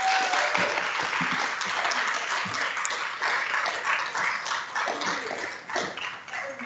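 Audience applauding, a dense patter of many hands clapping that is loudest at first and thins out towards the end.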